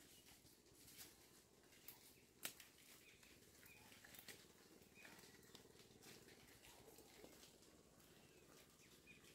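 Near silence: faint outdoor ambience with scattered small clicks and rustles, the sharpest click about two and a half seconds in.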